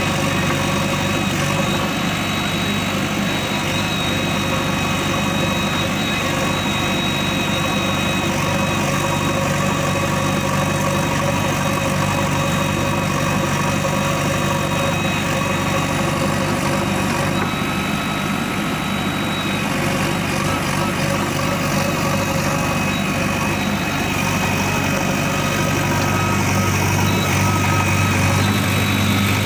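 Diesel engine of a JCB backhoe loader running steadily, getting a little louder and deeper near the end.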